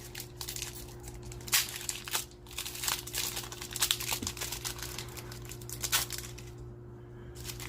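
Trading card pack wrapper being torn open and crinkled by hand, in a run of irregular sharp crackles that dies down about six seconds in.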